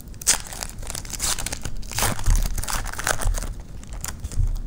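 Crinkling and tearing of a trading-card pack's wrapper being opened and handled, with a few dull bumps.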